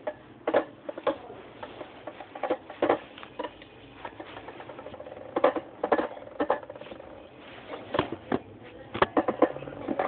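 Dark Wolf DF145FS and Rock Leone 145WB Beyblade tops spinning in a metal bowl, giving irregular sharp clicks and knocks as they strike each other and the bowl, several in quick clusters near the middle and the end.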